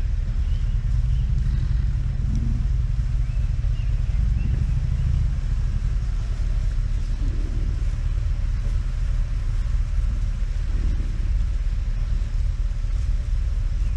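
Steady low rumble of a vehicle idling among a bison herd, with a few short, deep grunts from the American bison.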